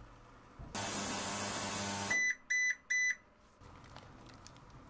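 A VEVOR ultrasonic cleaner running with a loud, harsh hiss over a low hum. It cuts off abruptly about two seconds in, and the unit then gives three short electronic beeps.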